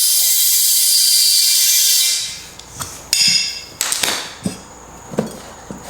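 Compressed air hissing loudly into a lawn tractor tire that will not seat its bead, cutting off about two seconds in. Several sharp metallic knocks and clinks follow.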